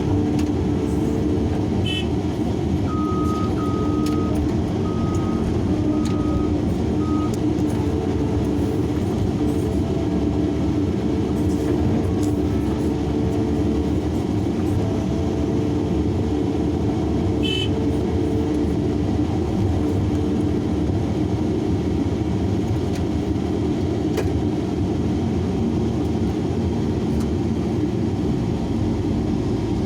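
Large excavator's diesel engine running steadily while working. About three seconds in, a string of short, high beeps sounds several times.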